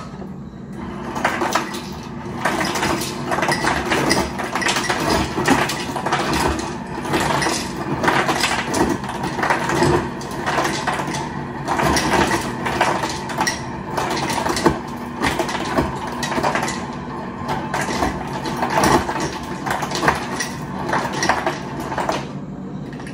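Ice dropping from a refrigerator door dispenser into a plastic pitcher, an irregular rattling clatter that starts about a second in and stops near the end, over a steady low hum.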